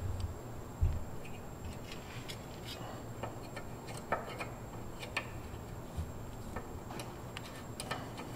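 Side cutters working a cotter pin out of the castle nut on an outer tie rod end: a scatter of light, irregular metallic clicks and ticks, with one duller knock just under a second in.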